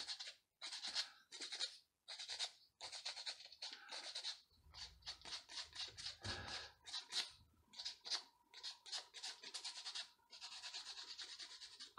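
Sandpaper rubbed by hand against a small homemade fishing float, flattening its edge: short rasping strokes, about two or three a second, stopping about ten seconds in.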